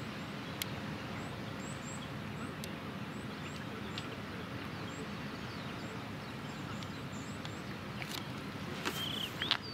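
Outdoor shoreline ambience: a steady low background rumble with faint, repeated high bird chirps. A few louder bird calls and sharp clicks come near the end.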